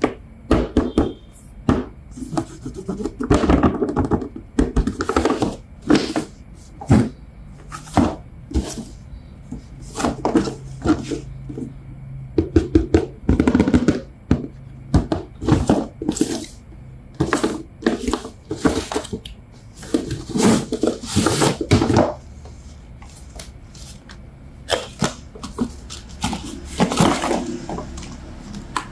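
Toy packaging being handled and opened by hand: irregular bursts of rustling and crinkling with sharp clicks and taps, coming every second or so.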